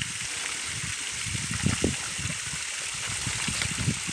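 Water from a hose jet spraying and splashing onto wild boars and wet, muddy ground: a steady hiss with uneven lower splashes.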